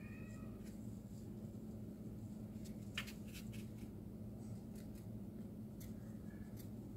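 A short pitched animal-like call, rising then falling, at the very start, and a fainter short call near the end. A sharp light tap comes about three seconds in, with a few softer clicks, over a steady low hum.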